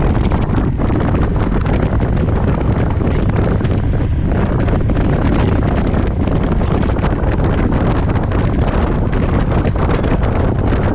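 Heavy, steady wind noise buffeting the camera microphone while riding a motorcycle at speed, with road and engine rumble mixed into it.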